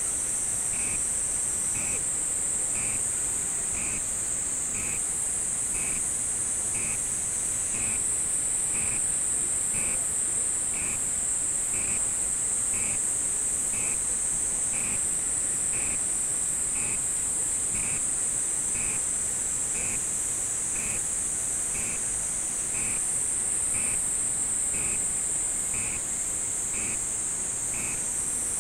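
A steady, high-pitched chorus of night insects, with a short pip repeating about once a second.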